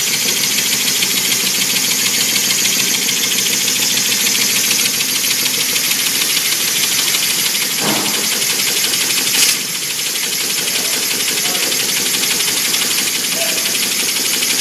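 Small double-acting single-piston engine running on compressed air: a loud, steady hiss of air rushing through it, pulsing rapidly as the flywheel spins. A brief click about nine and a half seconds in, after which the hiss is a little softer.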